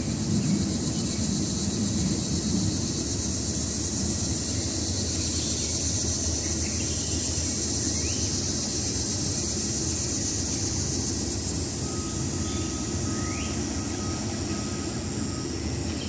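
Steady high-pitched insect chorus of summer woods, with a low steady rumble beneath it.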